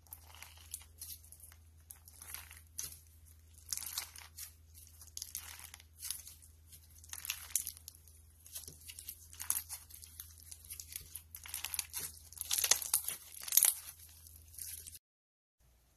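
Clear slime packed with avocado-patterned clay slices and small beads being squeezed and stretched by hand, giving irregular sticky crackles and crunches that are loudest a couple of seconds before the end. A faint low hum sits underneath, and the sound cuts out briefly near the end.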